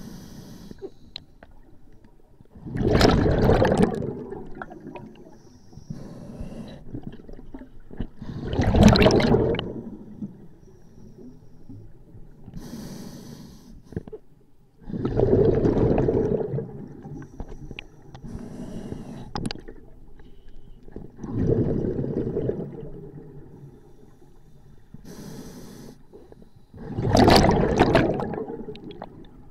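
Scuba diver breathing through a regulator underwater: five loud bursts of exhaled bubbles about every six seconds, each lasting a second or two, with a quieter hiss of inhalation between them.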